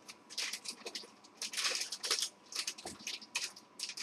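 Kitchen handling noise: a string of short, irregular rustles and scrapes, with one dull knock a little before three seconds in.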